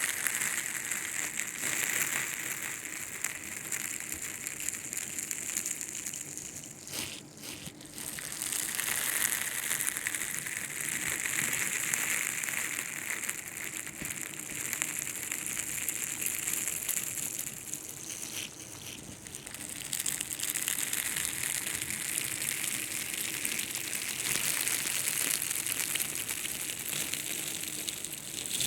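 Ear-picking ASMR: an ear pick scratching and rubbing inside a microphone's ear, making a close, dense crackling scrape. It runs in three long stretches, with short pauses about 7 and 19 seconds in.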